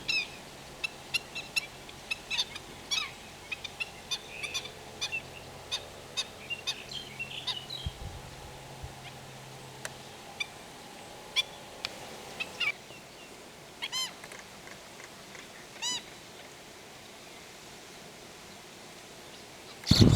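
Wild birds calling: a busy series of short, sharp high calls over the first dozen seconds, then two longer, louder calls about two seconds apart. A loud rushing noise starts right at the end.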